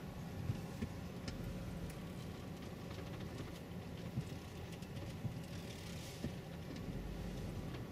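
Car cabin noise while driving slowly on an unpaved sandy track: a steady low engine and road rumble with a few light knocks and rattles.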